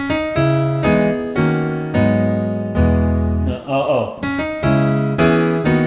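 Electric piano playing a progression of rich jazz chords over low bass notes, a new chord struck roughly every half second to second.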